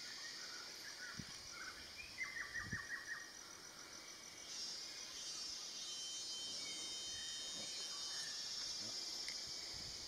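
Steady high-pitched insect chorus, growing a little louder about halfway through, with a quick run of short bird notes a little after two seconds in.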